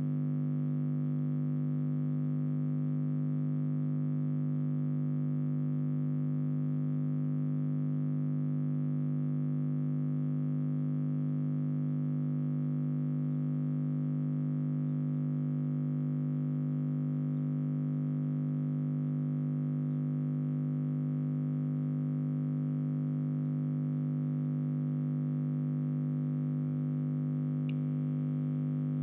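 Steady electrical mains hum, a low buzz that never changes in pitch or level, of the kind picked up on a webcam's audio line. A faint tick near the end.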